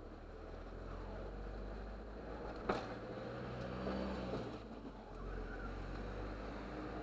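Lorry's engine and road noise heard from inside the cab as it drives and picks up speed, the engine note rising slightly. The sound drops briefly about five seconds in, and there is a single sharp click a little before the middle.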